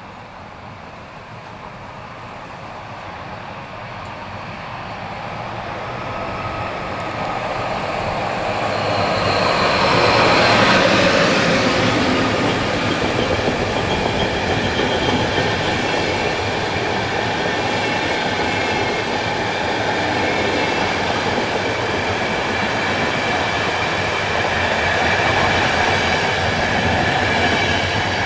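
EN Nightjet passenger train, hauled by a PKP Intercity EU44 electric locomotive, approaching and passing at speed. The sound grows, is loudest with a falling pitch as the locomotive goes by about ten seconds in, then stays loud as the coaches roll past, and begins to fade near the end.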